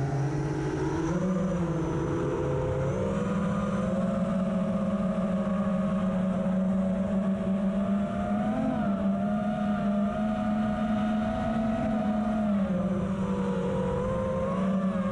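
FPV drone motors and propellers whining steadily, their pitch rising and falling with the throttle.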